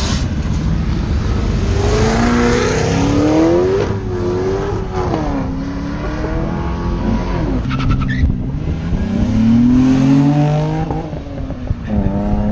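A car's engine revving hard as the car pulls away and accelerates through the gears: the pitch climbs, drops at each shift and climbs again, three or four times.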